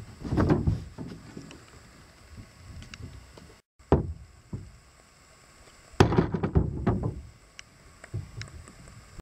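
Loose wooden boards knocking and clattering as they are stepped on and picked up. The knocks come in separate clusters, the loudest running from about six to seven seconds in, with a brief dead gap just before four seconds.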